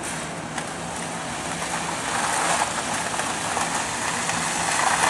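Metal push sled scraping across concrete as it is driven forward, a steady scraping noise that grows louder as it comes closer.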